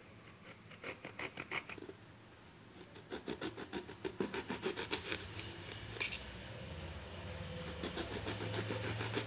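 Kitchen knife slicing an eggplant into thin rounds: quick runs of short scraping strokes as the blade passes through the skin and flesh, in three spells with short pauses between.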